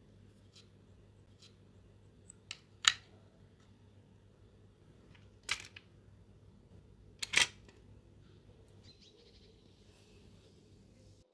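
Scattered sharp clicks and taps over a low steady hum, with three louder clicks about three, five and a half and seven and a half seconds in.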